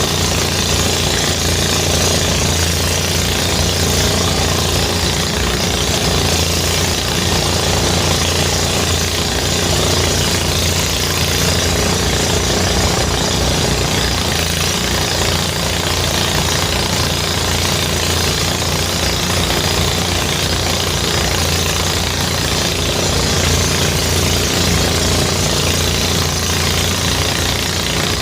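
Engine-driven rice threshing machine (a Gerabag power thresher) running steadily, a fast low engine pulse under an even hiss.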